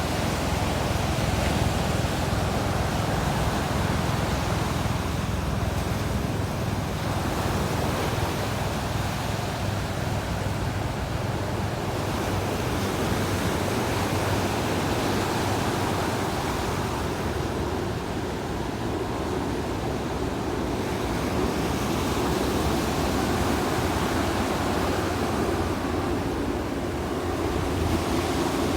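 Ocean surf on a sandy beach: a continuous wash of breaking waves that eases a little twice and builds again.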